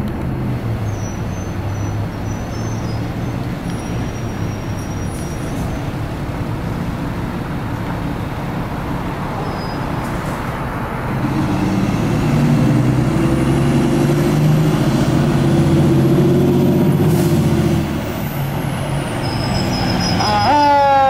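Fire engine's diesel engine running as the truck pulls out, growing louder for several seconds in the middle, with a hiss of air brakes. Its siren starts near the end with rising sweeps.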